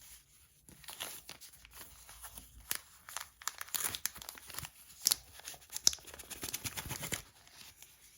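Packaging being unwrapped by hand: irregular crinkling and crackling of wrapping, with a few sharper crackles about five to six seconds in.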